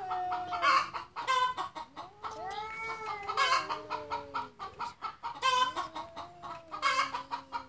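Two cats, a ginger tabby and a black-and-white cat, caterwauling at each other in a standoff before a fight. Their long, wavering, baby-like wails overlap, one low and one higher, sliding slowly up and down in pitch, with short sharp cries in between.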